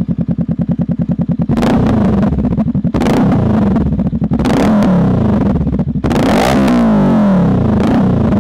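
2021 Honda Rebel 500's parallel-twin engine through a Vance & Hines aftermarket exhaust, idling with an even pulse, then blipped up in several revs from about a second and a half in, the pitch rising and falling with each rev.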